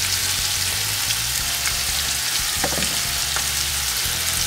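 Spring rolls shallow-frying in hot oil in a saucepan: a steady sizzle with scattered small crackles.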